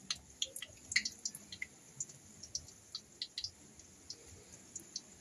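Battered kangkong leaves frying in hot oil in a wok over a low gas flame, the oil crackling and popping in small irregular ticks, thicker in the first second or so.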